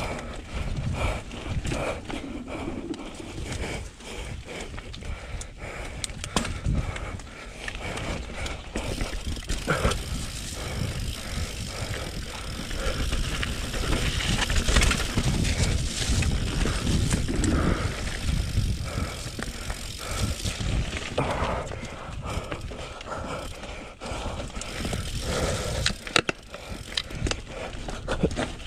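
YT mountain bike descending a rough dirt trail: tyres rolling over dirt, roots and rocks with a steady rushing rumble, and the bike clattering sharply over bumps. It is loudest around the middle.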